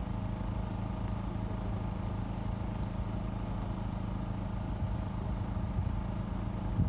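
Steady field background: a continuous high, finely pulsing insect trill over a low steady hum.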